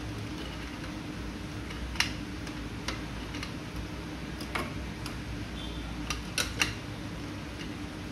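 Scattered sharp plastic clicks and taps as a hand turns and seats the plastic back-grill knob on a Xiaomi Mi Smart Standing Fan 2, over a steady low hum. The sharpest click comes about two seconds in, with a quick pair near the end.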